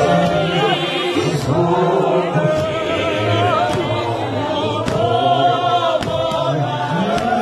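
A large men's choir chanting and singing together in harmony, many voices at once.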